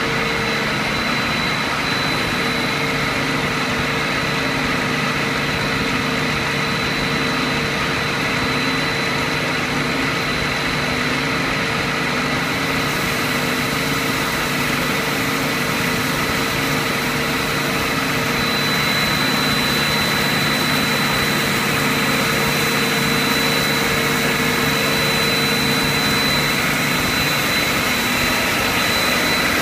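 HDPE raffia tape stretching plant running: a steady machine hum and hiss with constant high whining tones.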